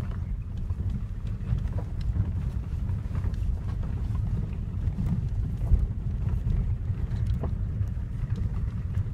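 Cabin sound of a diesel Hyundai Creta driving over a rutted dirt track: a steady low rumble of engine and tyres, with scattered light knocks and rattles as the SUV bumps along.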